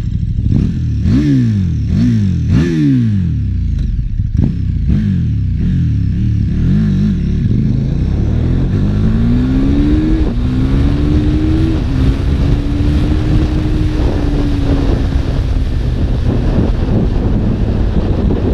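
KTM 1290 Super Duke R's big V-twin engine revved in several quick throttle blips, then pulling hard through two upshifts and settling to a steady cruise. Wind rush on the microphone builds as the speed rises.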